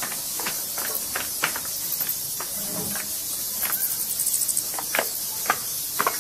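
Crickets chirping in short high trills over a steady hiss, with irregular footsteps and scuffs of people hurrying away on foot.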